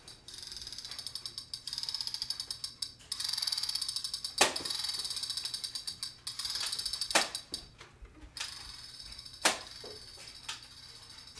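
Fast ratchet-like clicking from a Nerf blaster's mechanism, coming and going in stretches of a second or two, with three sharp snaps about 4.5, 7 and 9.5 seconds in.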